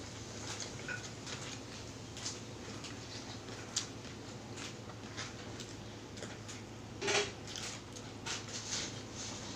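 Small clicks, crackles and rustles of people eating and drinking at a table, over a steady low hum. A louder crackly cluster comes about seven seconds in, and more crackles near the end.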